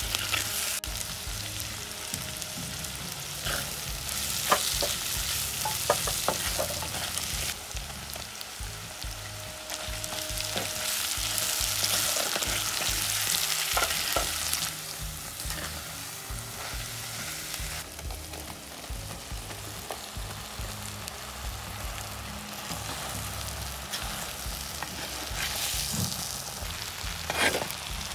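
Sliced onions and vegetables sizzling in hot oil in a clay pot, stirred with a wooden spoon that scrapes and knocks against the pot a few times.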